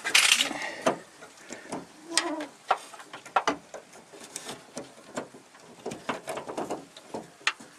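Scattered clicks, knocks and light metallic clinks of a car door's lock linkage and handle parts being worked by hand inside the door, with a louder scraping rustle right at the start.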